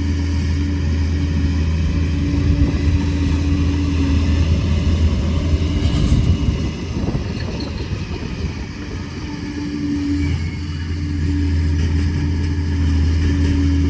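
Liebherr PR 746 bulldozer's diesel engine running steadily under work. It eases off about halfway through and picks back up to full level near the end.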